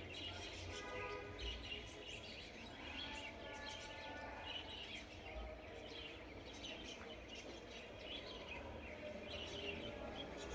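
Faint background ambience with scattered high chirps, in the manner of birds calling outside, and an occasional soft low thump.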